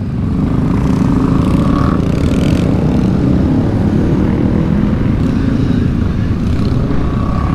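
A pack of motorcycles riding together at low speed, their engines making a steady low rumble.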